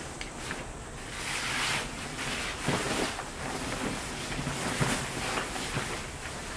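A large rain-wet fabric camping tarp rustling and swishing as it is gathered up, lifted and shaken out, in repeated swells of fabric noise.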